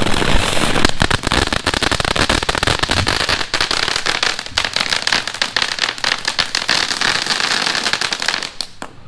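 Ground fountain firework spraying sparks with a dense, continuous crackle of rapid pops that dies away near the end.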